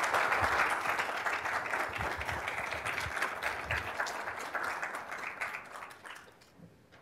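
Audience applauding, many hands clapping, fading away over the last two seconds.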